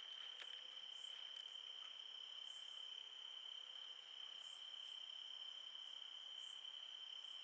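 Crickets calling: a faint, steady high trill with a higher, hissy chirp repeating roughly once a second.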